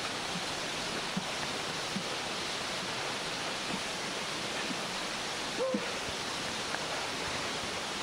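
Steady rushing of the Johanneswasserfall, a tall mountain waterfall, with faint soft knocks about once a second.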